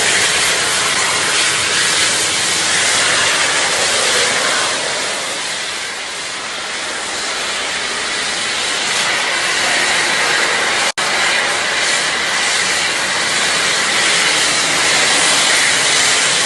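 Vacuum cleaner running with a steady, loud hiss of rushing air, cut off for an instant about eleven seconds in.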